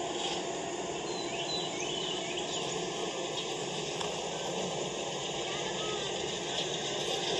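Steady background hiss with a few faint, high, chirp-like calls about a second or two in.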